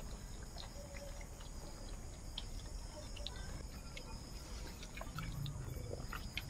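Faint small clicks and squelches of hands mixing rice and fish curry on clay plates as several people eat, over a steady high-pitched drone of night insects such as crickets.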